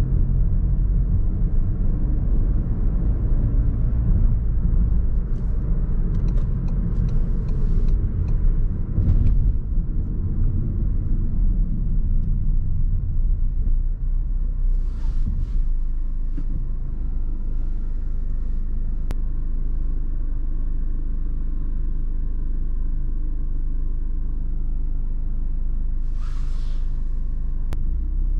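Car driving in city traffic: a steady low rumble of engine and road noise. It settles to a steadier, slightly quieter level about halfway through, with a few short hisses, one of them near the end.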